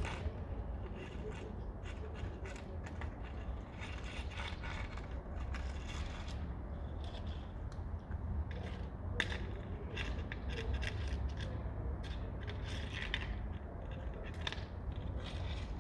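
Cats eating: irregular small clicks and scrapes of chewing and feeding, over a steady low rumble.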